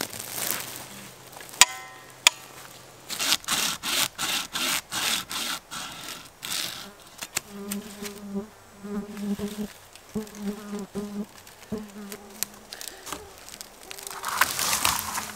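Two sharp clicks from a wooden folding bucksaw being put together, then a quick run of saw strokes through wood, about three a second. After that a flying insect buzzes on and off close to the microphone, and there is a rustling swell near the end.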